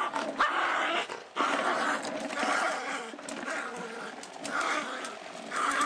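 A small dog sniffing and breathing noisily in short, uneven rushes as it noses at a plastic toy, with a few light clicks.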